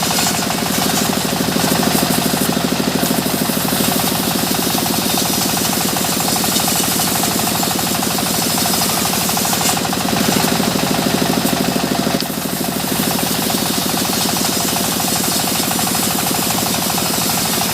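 Sawmill machinery running steadily: an engine's rapid, even pulsing under a loud, harsh hiss, with a brief dip about twelve seconds in.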